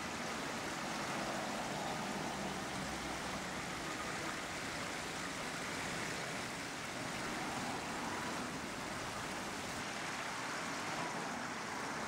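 Water of a small pondless waterfall spilling and splashing over rocks into a stony streambed, a steady, even sound.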